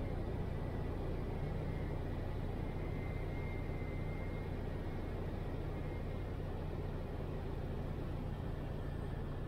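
Piper Tri-Pacer's engine running steadily at low power, heard from inside the cabin during the landing approach and rollout.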